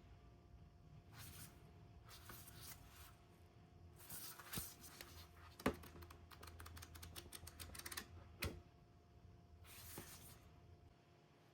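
Quiet handling of a disc box set's packaging: soft rustles, a run of quick crackling clicks in the middle, and a few sharp taps of cardboard and plastic cases.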